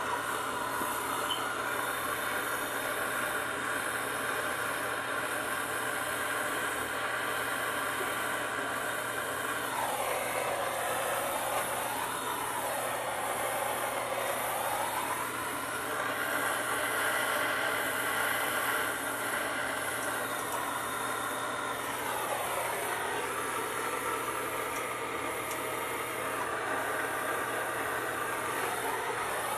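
Soldering torch flame hissing steadily while a copper pipe joint is heated for soldering. Its tone dips twice and recovers as the flame is moved.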